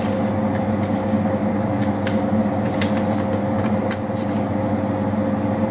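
Steady low machine hum, like an appliance running in a small room, with a few soft paper rustles and clicks in the middle as the pages of an instruction manual are handled.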